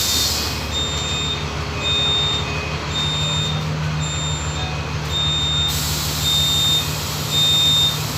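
Volksbus 17.230 EOD bus engine running steadily with a low hum, while a high electronic warning beep sounds about once a second.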